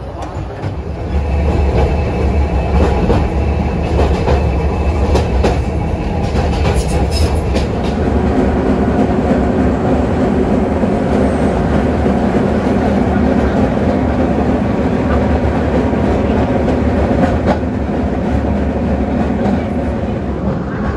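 Heritage tram running along the track: a steady motor hum and wheel noise, with sharp clicks over the rail during the first several seconds.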